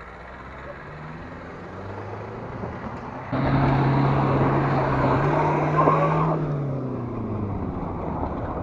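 Car engine revving hard under load on a steep off-road climb. It turns sharply louder about three seconds in, its pitch steps up slightly, then drops and fades away near the end.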